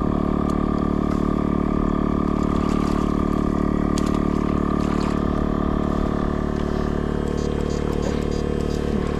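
Steady mechanical drone of a motor running at constant speed, with no change in pitch.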